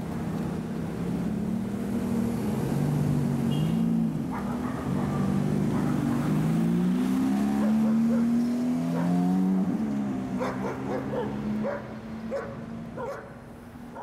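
Ferrari F430's V8 engine pulling away, its pitch climbing and dropping through several revs and gear changes, with one long climb in revs in the middle. The engine fades out over the last few seconds.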